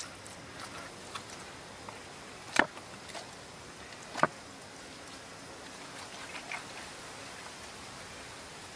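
Hands working chili marinade into raw beef ribs in a metal wok: soft, wet handling sounds over a steady hiss, with two sharp knocks about two and a half and four seconds in as the rib racks are turned in the pan.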